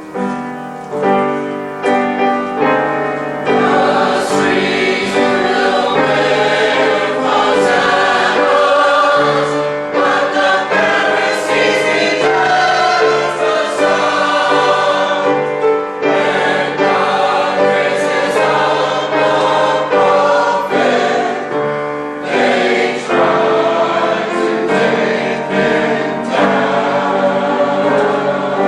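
Choir singing a sacred cantata number, full and sustained.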